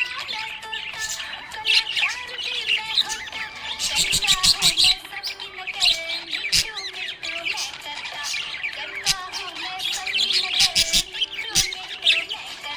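Small pet parrots chirping and squawking, with dense, overlapping rapid high calls and sharp clicks now and then.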